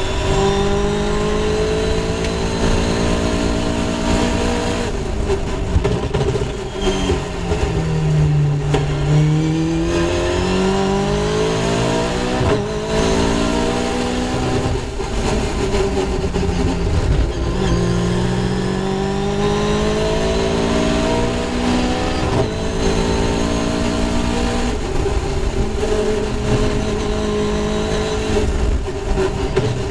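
Caterham Seven race car's tuned 2.0-litre Ford Duratec four-cylinder engine at full racing pace. Its note holds high, drops sharply twice, around eight and seventeen seconds in, then climbs back up through the gears each time.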